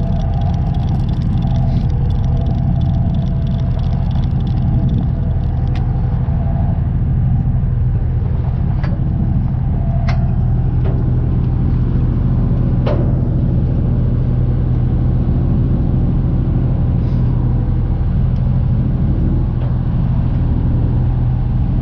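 A boat engine running with a steady low drone, plus a few faint sharp ticks.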